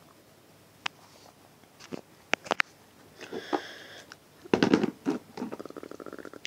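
Plastic action figures being handled and knocked together: scattered sharp clicks, then a louder clatter of knocks about four and a half seconds in, followed by a quick run of small clicks.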